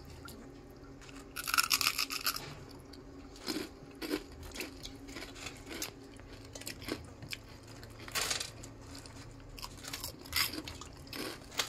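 Crisp fried urad dal fritters handled on a steel plate and dropped into a pot of buttermilk: short scattered scrapes and crunches, loudest about one and a half seconds in.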